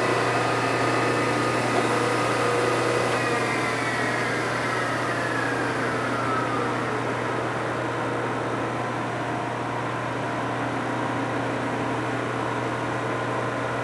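Belt-grinder drive on a surface grinder winding down after being switched off: its whine falls in pitch from about three seconds in and fades out by about seven seconds. A steady low machine hum keeps on underneath.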